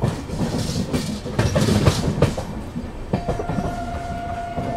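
Indian Railways sleeper coach running at speed, heard from the open doorway: the wheels click and knock over rail joints over a low rumble and rushing air. A steady high tone joins about three seconds in.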